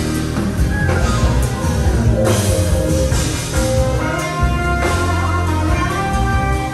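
Live jazz-fusion band playing, with a heavy bass line and drum kit under sustained pitched chords.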